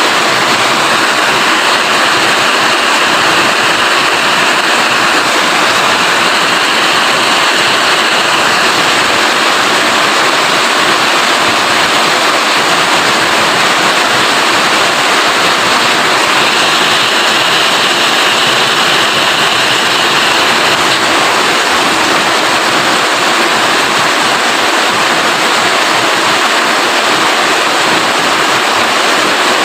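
Steady heavy rainfall, a dense even hiss with no breaks. A slightly brighter, higher layer of the hiss swells and fades twice.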